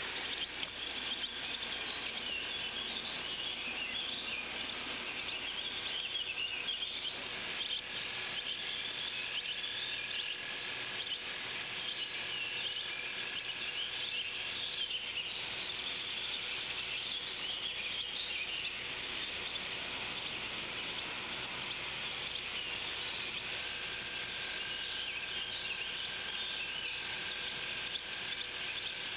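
Wild songbirds chirping and singing in the surrounding woods, a dense overlapping chorus of small high calls. A thin steady tone comes and goes.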